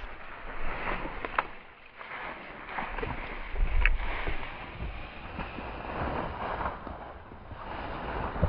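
Footsteps and dry brush crackling and scraping as a person pushes through dense dead ferns and undergrowth, with wind rumbling on the microphone, strongest about halfway through.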